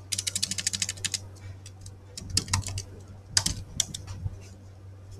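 Typing on a computer keyboard: a fast, even run of key clicks in the first second, then two short clusters of louder key presses about two and a half and three and a half seconds in.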